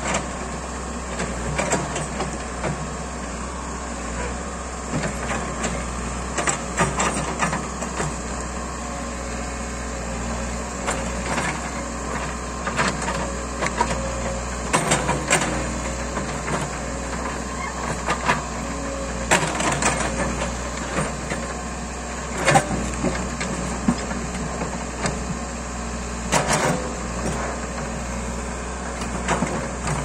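Caterpillar 416E backhoe loader's diesel engine running steadily under load as the backhoe bucket digs through rocky soil and woody debris, with frequent knocks and clanks of bucket and stones; the sharpest knock comes about two-thirds of the way in.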